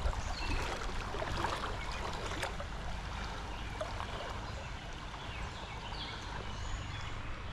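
Water of a small trout stream running over rocks: a steady rushing babble with a few faint ticks.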